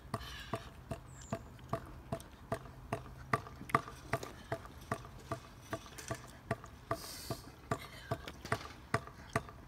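Stunt scooter clicking and clacking on tarmac as it is ridden and hopped: a string of sharp clicks, a few a second.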